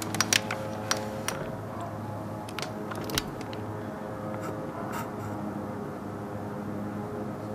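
Steady, low droning hum of several stacked tones, the unexplained 'strange hum from the sky' heard outside at night. A few sharp clicks of the camera being handled come in the first second and again around three seconds in.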